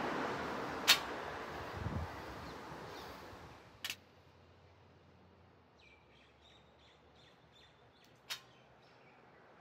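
Loaded barbell clicking as it is lowered to the concrete and lifted again: three short, sharp clicks, the loudest about a second in, then near four seconds and about eight seconds in. Wind noise fades away over the first four seconds, and faint bird chirps come near the end.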